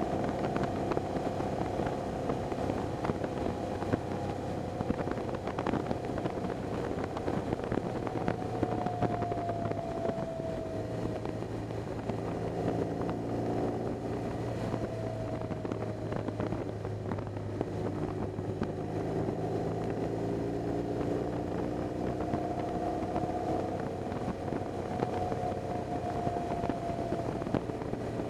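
BMW R 1200 GS flat-twin boxer engine running under way, its steady note dipping in pitch a few times as the bike slows or changes speed, with road and wind noise underneath.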